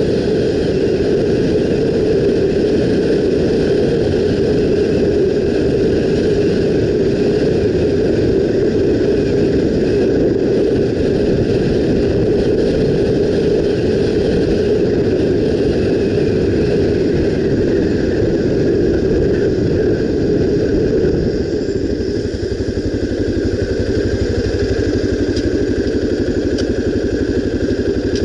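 Honda XR 250 Tornado's single-cylinder four-stroke engine running on the move. About 21 seconds in the sound drops a little and settles into a steadier, evener note.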